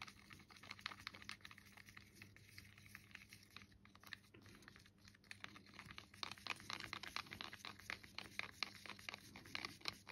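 Faint clicking and scraping of a stirring stick working through thick acrylic pouring paint in a clear cup, the small ticks coming thicker from about six seconds in.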